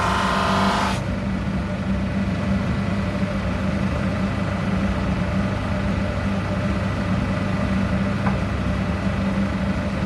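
Charnwood DS10/20 drum sander and its dust collector running with a steady motor hum. A higher whirring layered over it cuts off suddenly about a second in.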